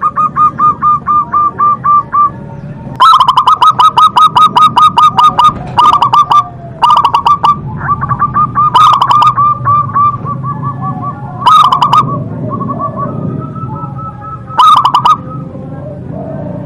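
Zebra dove (perkutut) cooing: repeated series of rapid staccato coo notes, the loudest and longest series starting about three seconds in, followed by shorter bursts.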